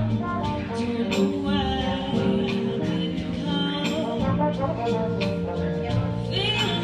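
Live jazz: a woman singing into a microphone with a trombone playing along over a steady beat of light strokes.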